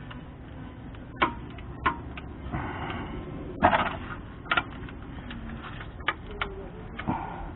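Metal ratchet clicking and clacking against the serpentine belt tensioner as the ratchet is fitted and worked: scattered, irregular sharp clicks, with a louder clatter about three and a half seconds in.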